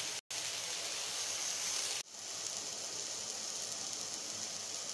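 Marinated chicken pieces sizzling in a hot grill pan: a steady hiss, broken by a brief dropout just after the start and an abrupt cut about two seconds in.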